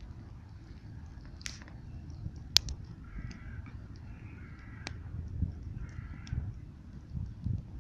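A crow cawing three times, with a few sharp cracks in between over a steady low rumble.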